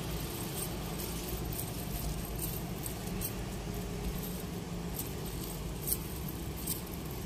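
A nylon cast net handled on the ground, its weighted lead line clinking in scattered light ticks as the mesh is pulled and sorted by hand.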